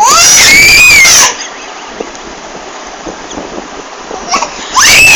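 A baby shrieking with laughter: two loud, high-pitched squeals of about a second each, the first at the start and the second near the end. Each rises in pitch and then holds, loud enough to clip.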